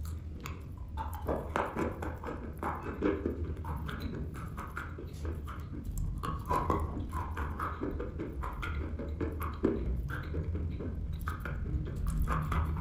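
Close-up crunching and chewing of dry chalk: dense, irregular crisp cracks and crackles from biting and grinding the chalk between the teeth.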